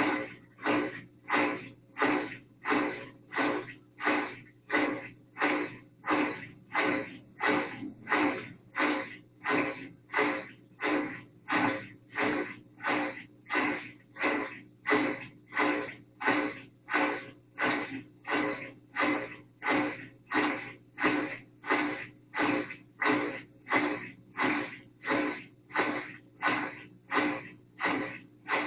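Whirlpool washing machine running, most likely agitating: a regular swish about three times every two seconds over a steady motor hum.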